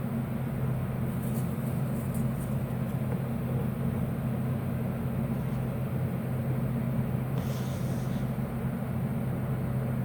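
Steady low background hum, with a few faint, brief rustles from handling a small packet about two seconds in and again near eight seconds.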